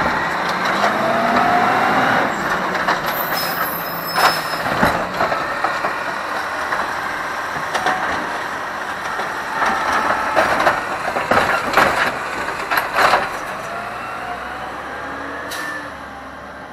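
Automated side-loader garbage truck at work: the diesel engine runs under load while the hydraulic lift arm whines, and the cart bangs and knocks as it is set down and as another cart is tipped and shaken into the hopper. A short hiss of air, typical of an air brake release, comes about three seconds in, and the truck pulls away near the end.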